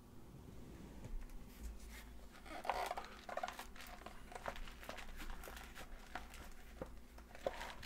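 Hands handling a trading-card starter set's plastic and card packaging up close: crinkling and rustling with scattered small clicks and taps, busiest from about two and a half seconds in.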